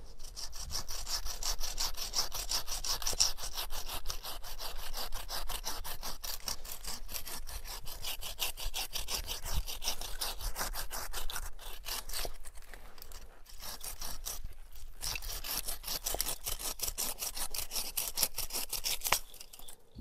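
Hand saw cutting through wood in quick, steady back-and-forth strokes, pausing briefly twice around the middle and stopping abruptly near the end.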